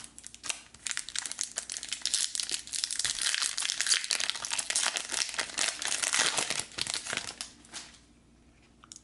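Foil wrapper of a trading-card pack being torn open and crinkled by hand: a dense crackle lasting about seven seconds that stops a second before the end.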